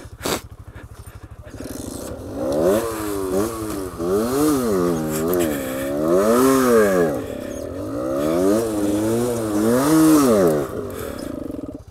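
Single-cylinder engine ticking over, then revved so that its pitch rises and falls in several swells before settling back to idle near the end.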